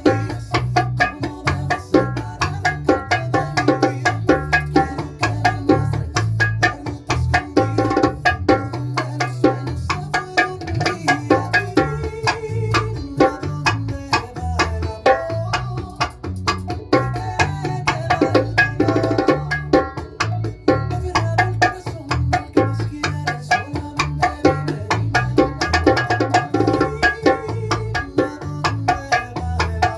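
Bongos played in the bachata derecho and majao patterns along with a recorded bachata song, with steady rapid hand strokes over the track's bass and guitar.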